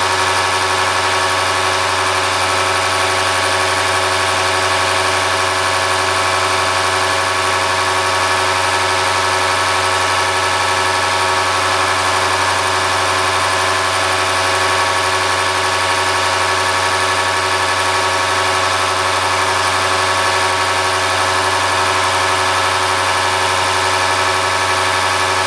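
Bosch diesel injection pump test bench driving a Bosch H-series inline injection pump at a steady speed under test: a loud, steady machine hum with a whine on top.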